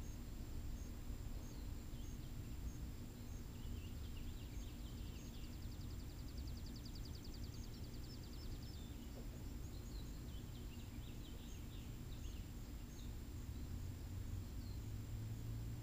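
Outdoor ambience: small birds chirping now and then, with a fast trill about six seconds in, over a steady low rumble.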